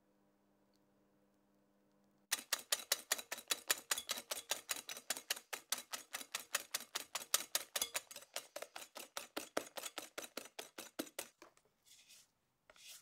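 Wire balloon whisk beating egg and sugar in a glass bowl, its wires clicking fast and evenly against the glass, about five or six times a second. The whisking starts suddenly a couple of seconds in and stops about two seconds before the end, followed by two soft brief sounds.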